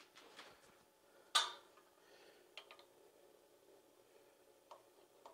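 Small metal parts and tools being handled on a milling machine table: one sharp metallic clack about a second in, then a few faint clicks.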